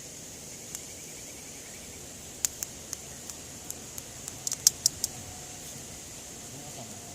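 Campfire wood crackling: a scattering of sharp pops and snaps, most of them between about two and a half and five seconds in. They sound over a steady high-pitched background hiss.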